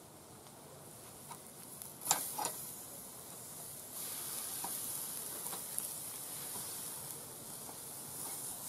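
Marinated meat sizzling on the grate of a charcoal kettle grill, with a few sharp clicks of metal tongs about two seconds in as the pieces are turned. The sizzle grows louder about four seconds in, after a piece is flipped back onto the hot grate.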